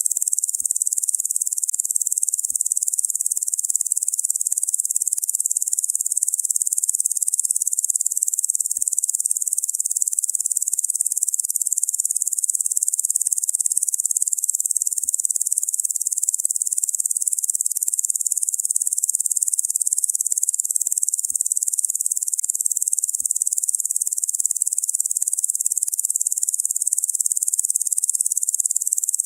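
Locusts buzzing: a steady, high-pitched insect drone without a break.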